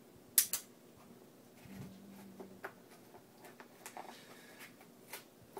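Spyderco Manix folding knife cutting open a cardboard package: small scrapes and rustles broken by sharp clicks, two loud ones close together about half a second in.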